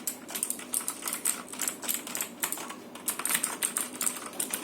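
Vortex VX7 mechanical keyboard with clicky Outemu Blue switches being typed on: rapid, irregular key clicks, several a second.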